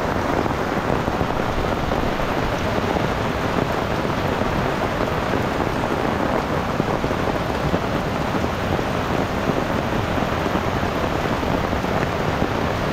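Steady noise of heavy rain falling on an umbrella, mixed with a flood-swollen river rushing over boulders.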